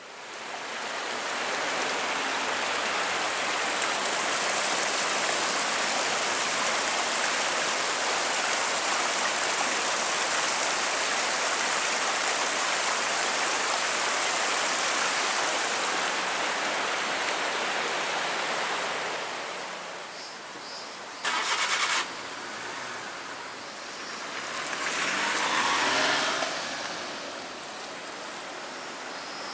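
A small shallow stream rushing over rocks, a steady rush of water that fades out about two-thirds of the way through. After a brief loud burst of noise, a car passes, swelling and then fading with a falling pitch.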